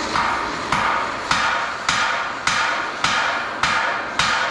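A hammer peening the torch-heated end of a steel rivet into a mushroom head: eight even, ringing blows a little under two a second, over the steady hiss of a gas torch held on the rivet end.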